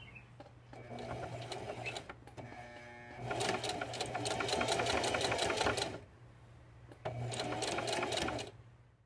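Electric sewing machine stitching down a folded fabric hem, running in three bursts with short pauses between: a short one about a second in, a longer, louder one from about three to six seconds, and another near the end, each a fast steady patter of needle strokes.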